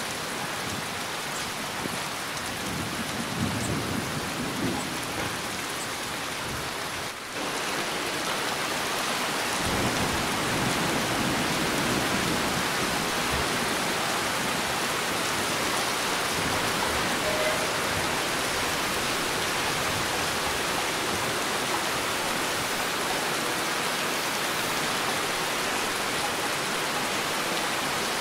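Heavy rain falling steadily, with low rumbles of thunder about three to five seconds in and again around ten seconds. The sound dips for an instant about seven seconds in and comes back slightly louder.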